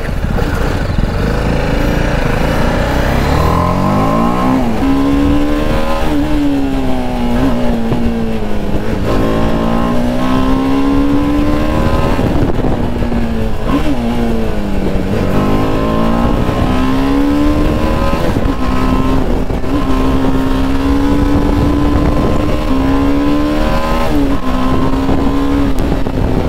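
BMW G 310 RR's single-cylinder engine pulling away from a stop and accelerating up through the gears, its note climbing and dropping back with each shift, then holding a steadier note at road speed.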